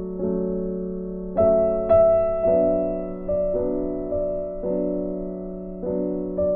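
Background piano music: single notes and chords played at a slow, even pace, each one struck and left to fade.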